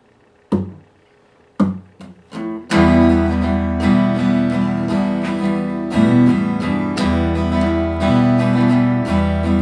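Live band starting a song: a few separate sharp strokes in the first couple of seconds, then strummed acoustic guitar and low notes come in together and play the song's intro steadily.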